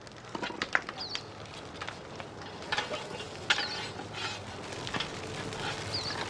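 Wood fire crackling and hissing in the firebox of a wood-fired pottery kiln as it is stoked with sticks, with scattered sharp cracks and pops.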